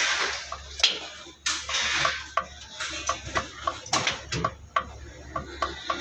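Metal tools clinking and tapping against a backhoe axle housing as a new oil seal is worked onto the splined shaft: irregular light metallic clicks, two or three a second, with a sharper knock about four seconds in and some brief scraping.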